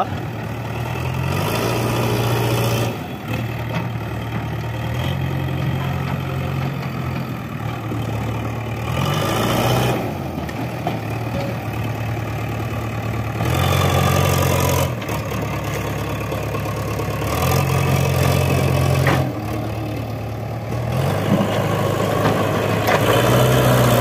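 JCB 3DX backhoe loader's four-cylinder diesel engine running, its note stepping up and down several times as the front loader bucket is raised, tipped and lowered.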